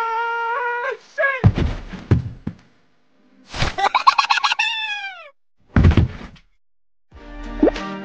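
A string of cartoon sound effects: a held electronic tone that cuts off about a second in, a few thuds, a fast warbling tone that slides down in pitch, and another thud. Music begins near the end.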